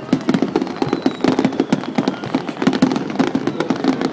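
Dense barrage of aerial fireworks shells bursting, many loud cracks and bangs a second with hardly a pause, typical of a festival's finale.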